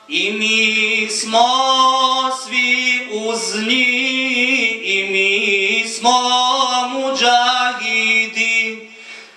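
Men singing an ilahija, a Bosnian Islamic devotional hymn, a cappella: long, ornamented phrases that fade out near the end.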